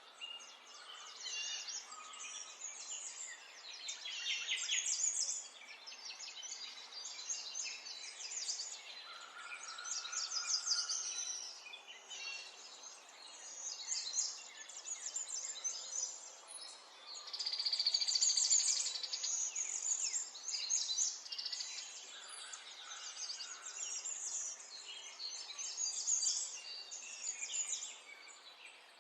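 Songbirds chirping and trilling continuously, several overlapping calls with rapid repeated notes. Around the middle there is a longer, louder high trill.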